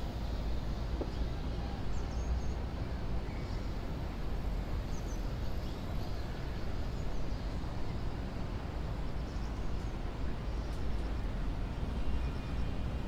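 Steady city street ambience: a low, even rumble of traffic with faint scattered chirps above it.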